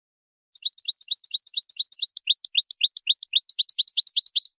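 European goldfinch song: a fast, even run of high, sweeping repeated notes, about seven a second. It starts about half a second in and cuts off abruptly at the end, as an edited tutoring recording for young goldfinches would.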